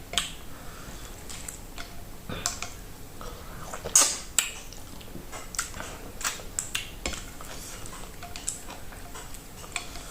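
Close-miked eating sounds: irregular sharp wet clicks and smacks of a mouth chewing, the loudest pair about four seconds in.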